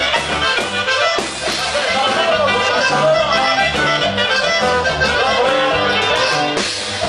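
Norteño band playing a huapango, the accordion carrying the melody over steady bass notes.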